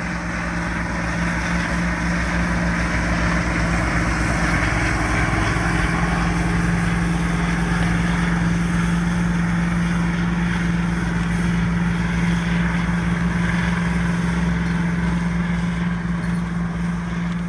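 Massey Ferguson 4880's Cummins VT903 V8 diesel running steadily under load, pulling a chisel-type tillage implement through corn stalks. It grows louder over the first couple of seconds, then holds a steady pitch.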